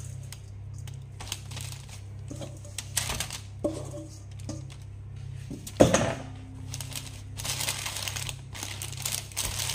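Baking paper rustling and crinkling in a pie plate as crumbly dough is dropped in and pressed down by a gloved hand, with scattered light knocks and one sharp knock about six seconds in. A low steady hum runs underneath.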